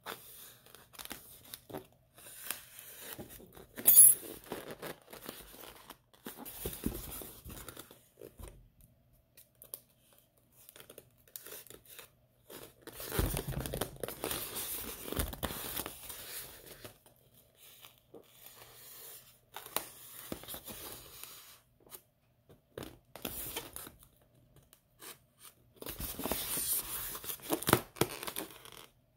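Packing tape being peeled and torn off a styrofoam shipping container, with foam rubbing and creaking as it is worked open, in irregular bursts. A sharp high squeak about four seconds in is the loudest sound.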